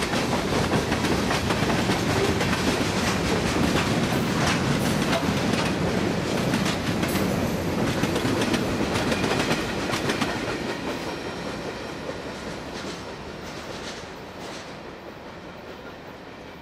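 A freight train's cars rolling past, their wheels clicking over rail joints over a steady rumble. After about ten seconds the sound fades steadily as the last cars pass and the train draws away.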